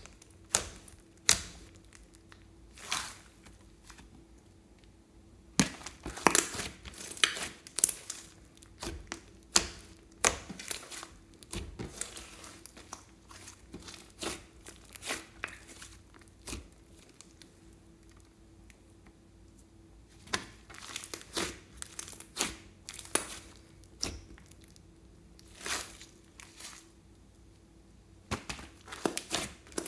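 Hands kneading, squeezing and stretching a thick batch of store-bought slime mixed with clay and makeup, giving irregular sticky clicks, pops and crackles as it is pressed and pulled, with a quieter spell a little past the middle.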